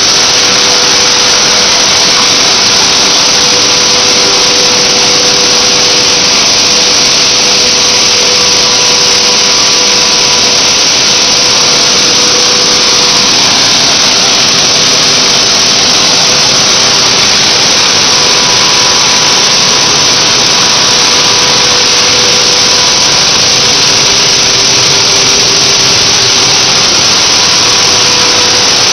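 Machinery of a PET bottle recycling and washing line running: a loud, steady whooshing whir with a faint steady hum underneath, unchanging throughout.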